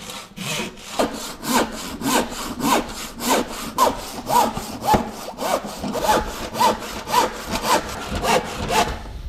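An Irwin crosscut handsaw cutting through plywood by hand in long, steady back-and-forth strokes, about two a second, each stroke a rasping swish.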